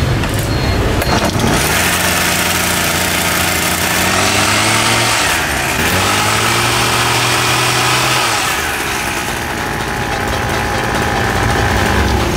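Husqvarna 122HD60 hedge trimmer's small two-stroke engine pull-started on its glue-repaired recoil starter, catching about a second and a half in and running steadily. Its pitch shifts around the middle, and it settles lower and quieter near the end.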